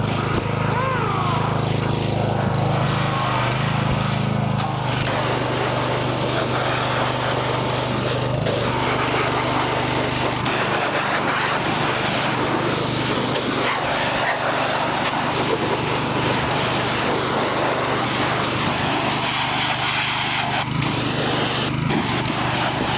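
Pressure washer running steadily, with a low motor hum under the loud hiss of its water jet washing down a dirt bike.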